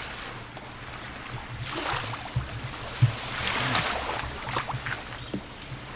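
Small waves washing onto a pebble beach: a steady hiss that swells twice, about two seconds apart.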